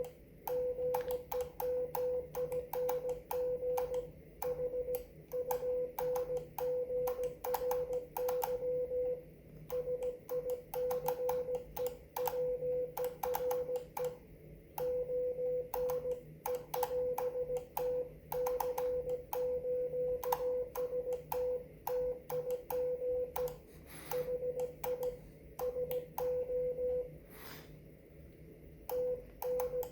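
Morse code (CW) on the 30-meter amateur band: a steady tone near 500 Hz keyed on and off in dots and dashes, with sharp clicks along with the keying and a faint low hum underneath. The keying pauses for about two seconds near the end.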